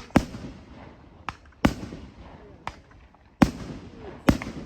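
Aerial fireworks shells going off in a quick series of six sharp bangs, about one a second, four of them loud and two lighter, each echoing briefly.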